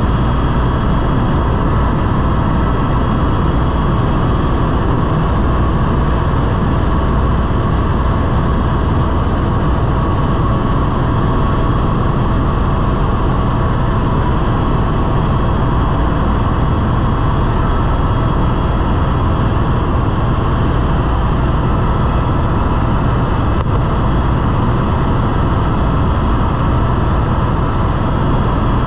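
Tour helicopter in flight, heard from inside the cabin: a steady, loud drone of engine and rotor with a constant whine over it, unchanging throughout.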